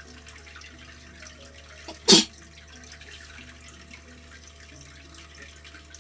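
One sharp, loud human sneeze about two seconds in, short and explosive. It is deliberately provoked.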